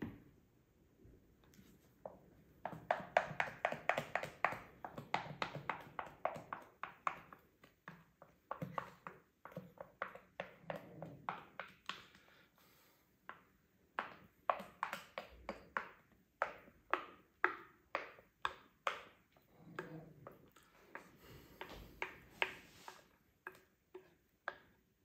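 A kitchen utensil clinking rapidly and repeatedly against a dish, several light taps a second in uneven runs with short pauses.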